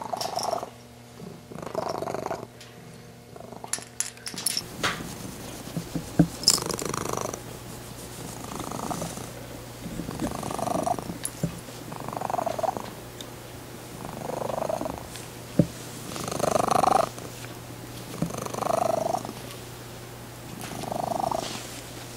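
Domestic cat purring with a weird high pitch, the sound swelling and fading with each breath about every two seconds. The cat is healthy with nothing stuck in her throat, so the cause of the high-pitched purr is unknown.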